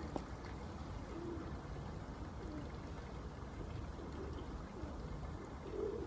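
Domestic fancy pigeons cooing softly, a few short low coos, over a steady low rumble.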